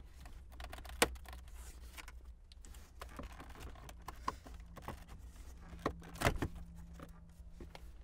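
Plastic dash trim bezel around a Honda Accord's radio being pried and pulled loose by hand and screwdriver: scattered small plastic clicks and rattles, with a sharp snap about a second in and a quick cluster of clicks about six seconds in as the clips give.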